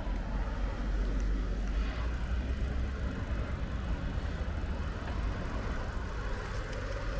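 Street ambience dominated by a steady low traffic rumble from passing vehicles, heaviest in the first few seconds.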